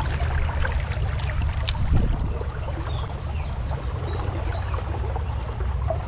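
Shallow river water rippling and flowing over a riffle, over a steady low rumble, with one light knock about two seconds in.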